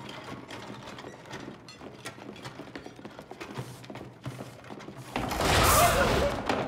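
Scattered footsteps, clicks and knocks of chairs being moved, echoing in a large empty hall, then about five seconds in a sudden loud swell of deep rumbling noise.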